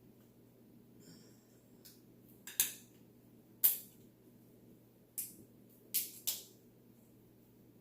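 A boiled lobster tail shell being cracked open by hand: about six sharp snaps and cracks in irregular bursts, the loudest two around the third and fourth seconds.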